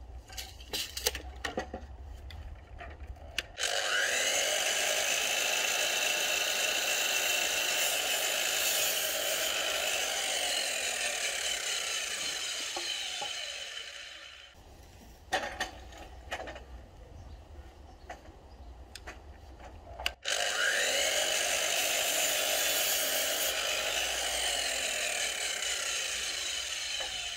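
DeWalt DWS780 305 mm sliding mitre saw run twice, cutting 4x4 timber post. Each time the motor spins up with a rising whine, runs steadily for several seconds, then winds down. Light clicks and taps of handling come before and between the two runs.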